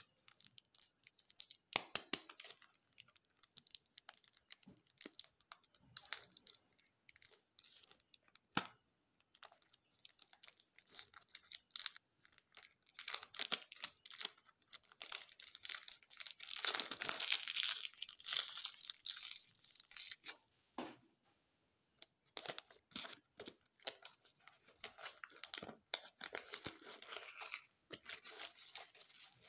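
Candy wrappers being torn open and crinkled, with many small crackles and clicks. About halfway through comes a longer, louder stretch of tearing and rustling.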